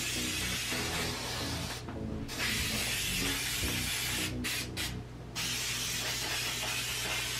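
Aerosol can of spray adhesive hissing in three long bursts, with short breaks about two seconds in and again near five seconds.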